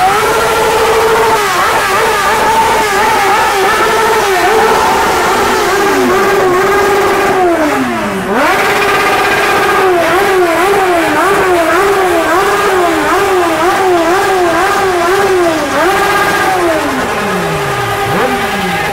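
Motorcycle engine revved hard and held at high revs, with rapid repeated dips and blips of the throttle. The revs fall away about eight seconds in, climb again, and drop once more near the end.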